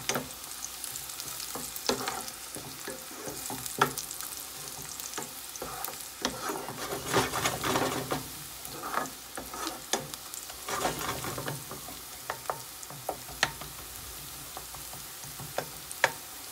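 Sliced onions sizzling in hot oil in a frying pan as they brown, stirred with a wooden spatula that scrapes and taps against the pan, with a few sharp clicks.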